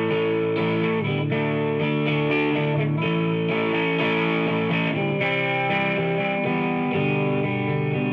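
Background music led by electric guitar, its chords changing every second or so.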